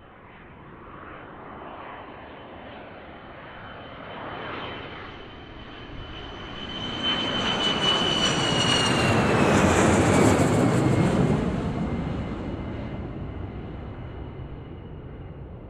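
Jet airplane flying past: engine noise builds for several seconds, peaks about ten seconds in with a high whine that drops in pitch as it passes, then fades away.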